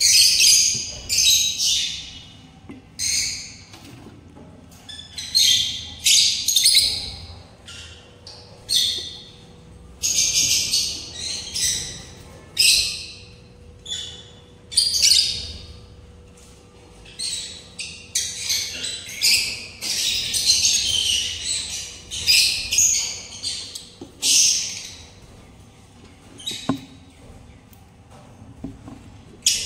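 Small parrots squawking: repeated harsh, raspy calls in short bursts, with a longer unbroken run of calls about twenty seconds in.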